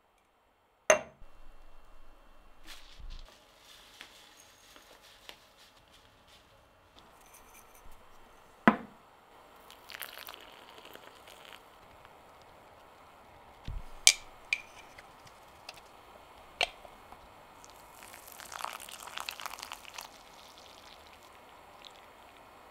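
Yerba mate being made in a ceramic gourd: a few sharp knocks and glassy clinks from the gourd and its metal bombilla being handled on the bench, the loudest about a second in, with stretches of dry rustling from the loose yerba leaves.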